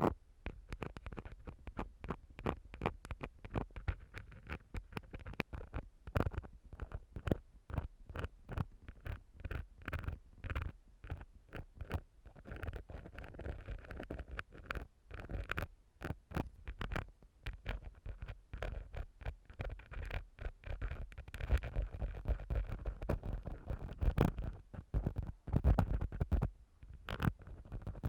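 Ear-cleaning tool scratching and rubbing close on a microphone, used as a stand-in for an ear: a dense run of irregular scrapes and clicks with a low rumble underneath.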